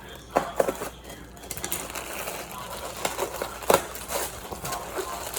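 Packing material crinkling and rustling as an item is unwrapped by hand, with a few sharp knocks.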